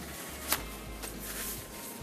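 Quiet background music, with a single sharp click about half a second in.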